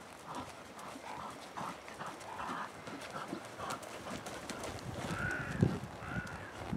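Horse's hoofbeats in a steady rhythm of about three beats a second. Near the end there are three short rising-and-falling calls, over a low rumble of wind on the microphone.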